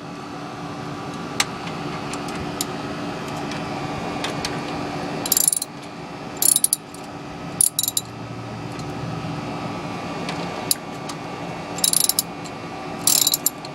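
Ratchet socket wrench clicking in short bursts as it is worked back and forth to loosen a truck's oil drain plug, over a steady hum.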